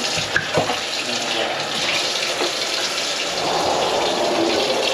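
Tap water running steadily from a kitchen faucet into a stainless steel sink and down the drain, with a couple of light knocks about half a second in.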